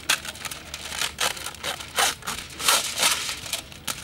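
Aluminium foil being pulled off its roll and torn, crinkling and ripping in a quick string of sharp rustles.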